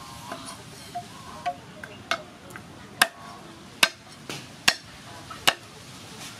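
Cleaver chopping garlic cloves on a thick wooden chopping block: single sharp knocks, spaced unevenly about half a second to a second apart, loudest from about three seconds in.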